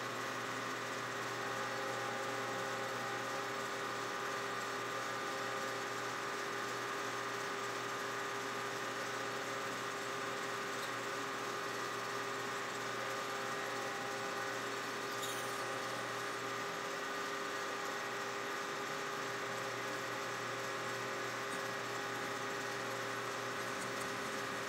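Metal lathe running steadily, its chuck spinning a small cutter that mills a keyway into a shaft fed against it: a steady machine hum with several steady tones and no breaks.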